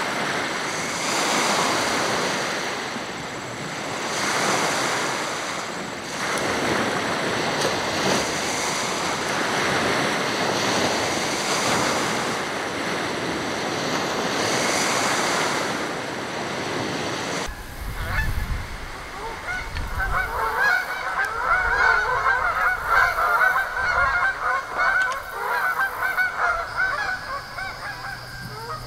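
Lake waves washing onto a small beach, the surf swelling every two to three seconds. After an abrupt cut, a flock of Canada geese honks repeatedly, many calls overlapping.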